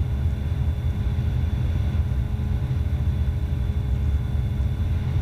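Steady low drone of an Evektor SportStar's Rotax 912 engine and propeller, heard inside the cockpit in flight, with a few faint steady tones above the rumble and no change in power.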